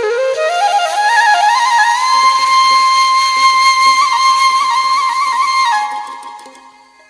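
Background music on a solo flute, from a Balochi sad flute track. The melody climbs over the first couple of seconds to a long held high note with small ornaments, then fades out near the end.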